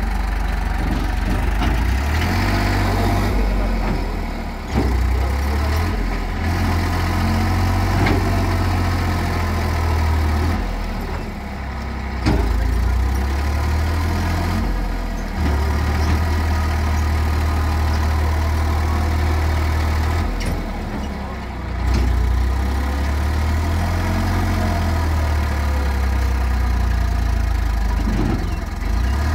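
Diesel tractor engine running under load while it drags a trailer with a transformer through soft mud. The engine note sags and then surges back several times as the wheels struggle in ground where the tractor gets stuck.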